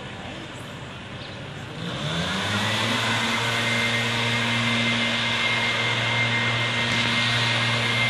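A motor-driven machine starts up about two seconds in. Its pitch climbs for about a second, then it runs steadily with a low hum and a thin high whine over a hiss.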